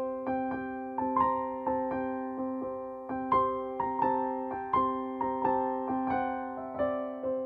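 Slow, gentle piano music: single struck notes, about two a second, each fading away, over a held low note.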